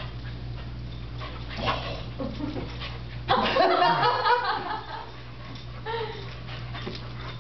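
Dogs playing tug-of-war with a rope toy, with a loud burst of dog noise about three seconds in as the weimaraner leaps for the rope, and a short whine near the end.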